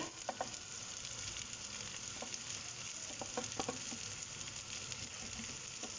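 Vegetables sizzling steadily as they fry in oil in a pan, with shredded cabbage tipped in on top, and a few faint light clicks.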